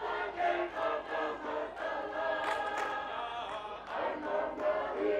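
Tongan lakalaka sung by a large mixed group of performers, many voices in harmony holding long notes and moving between them.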